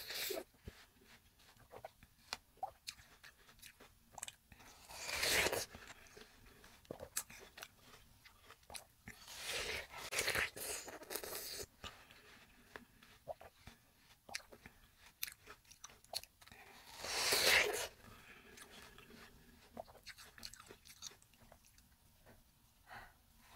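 Close-miked biting into and chewing a juicy wedge of fresh watermelon: crisp, wet crunches and chewing clicks, with three louder bites about five, ten and seventeen seconds in.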